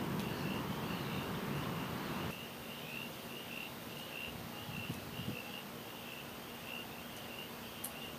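Night insects chirping in a steady, even pulse, about two or three chirps a second. A rushing noise in the first two seconds cuts off suddenly.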